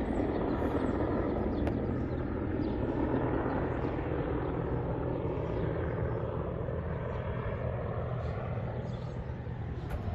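Boeing AH-64E Apache Guardian attack helicopter flying past, its rotor and twin turboshaft engines making a steady low beat that slowly fades as it moves away.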